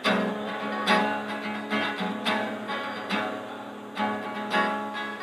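Acoustic guitar playing an instrumental riff in B between sung lines, picked and strummed notes with a strong attack roughly every second.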